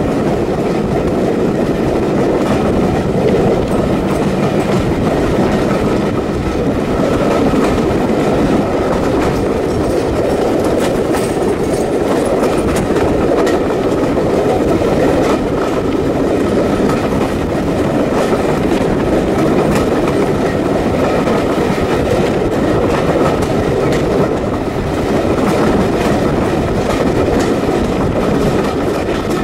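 Heritage steam railway train running along the line, a steady rumble of the carriages with the wheels clicking over the rail joints.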